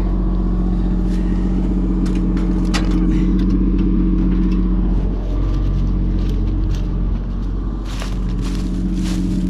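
Excavator's diesel engine running steadily under load, dipping briefly about five seconds in and again a little before the end, with scattered knocks, most of them near the end.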